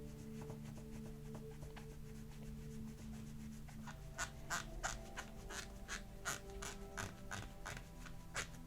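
Rapid rubbing strokes on the model car's clear plastic window unit as it is hand-polished, about three strokes a second starting about halfway through, over faint held background music.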